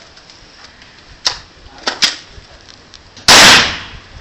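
A few sharp clicks, then one very loud M1 rifle shot about three seconds in that overloads the recording and echoes briefly as it dies away.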